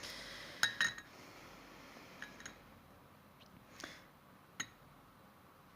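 Faint clicks and taps of kitchen handling as a spoon and a hollowed turnip packed with granulated sugar are worked and set down, with a soft hiss in the first second.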